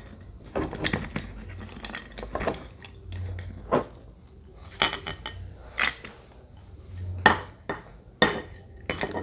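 Irregular clinks and knocks against a glass jar as crushed cuatecomate fruit is put into it, with a few louder knocks in the second half.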